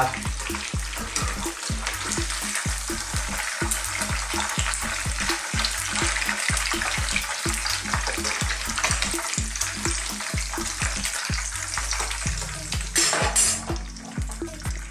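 Mackerel pieces frying in very hot sunflower oil, sizzling and crackling steadily, with small clicks of metal utensils in the pan as the fish is lifted out.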